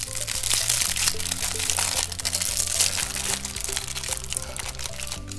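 A plastic sleeve around a sunglasses case crinkling and crackling irregularly as fingers handle it and pick at its end, over steady background music.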